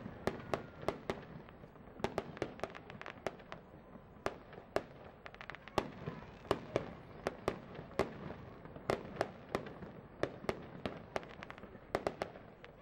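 Aerial fireworks going off: a rapid, uneven run of sharp bangs and pops, several a second, as shells burst overhead.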